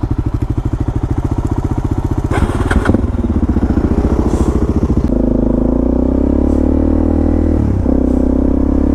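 Supermoto motorcycle engine running at low revs with an even pulsing beat, then settling into a steadier, higher note about five seconds in, with a brief dip near the end.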